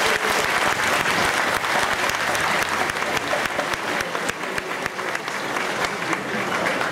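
Spectators applauding: many hands clapping in a dense, steady patter.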